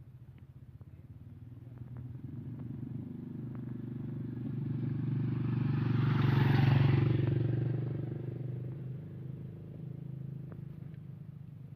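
A motorcycle engine passing by: it grows steadily louder, is loudest about six to seven seconds in, and then fades away.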